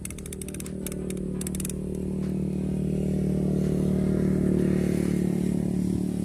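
A motorcycle engine running steadily and growing louder as it draws near, loudest about four to five seconds in and easing a little near the end. A rapid run of sharp, high clicks comes in the first couple of seconds.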